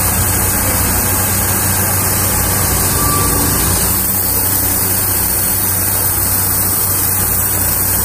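Wood-Mizer LT35 hydraulic portable sawmill's engine running steadily, a constant low hum with no cut under way.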